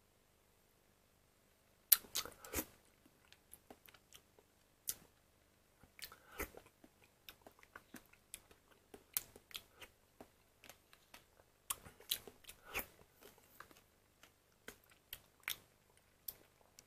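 A metal spoon stirring and scraping thick cream yogurt in a plastic cup, heard as scattered sharp clicks and short scrapes that start about two seconds in.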